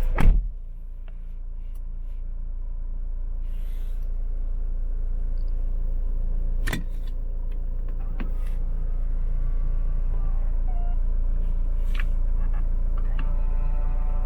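Fiat Toro's turbo-diesel engine running steadily, with a sharp knock about a quarter second in and a few lighter clicks later.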